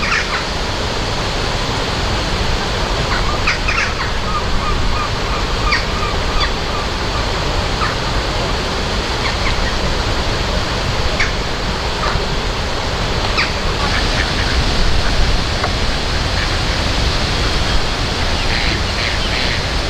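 Steady rushing water, an even hiss without let-up, with a few brief high chirps over it.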